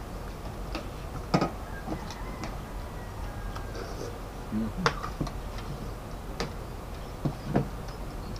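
Eating sounds at the table: scattered, irregular clicks and light clinks, the sharpest about a second and a half in and another about five seconds in.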